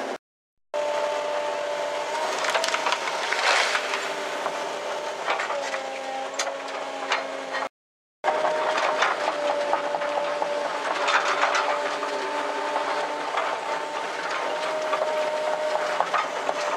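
Link-Belt 210 LX excavator with a log grapple running, heard from inside the cab: a steady engine and hydraulic whine that steps in pitch as the boom and grapple are worked, with scattered knocks and cracks of the grapple against wood. The sound cuts out completely twice, briefly.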